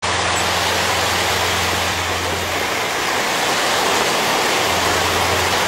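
Steady rushing noise of surf and wind on the beach, with a low hum underneath for the first couple of seconds that returns near the end.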